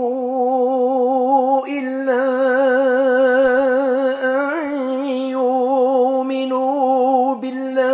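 Male reciter chanting the Quran melodically in the Maghrebi tradition, drawing out the word 'illa' and the phrase after it in long held notes with a wavering vibrato.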